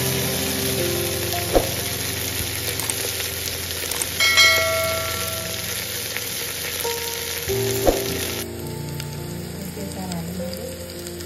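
Dried buffalo meat frying in hot oil in a metal pot, a steady sizzle as a ladle stirs it, with two knocks of the ladle against the pot. The sizzle drops away sharply about eight seconds in.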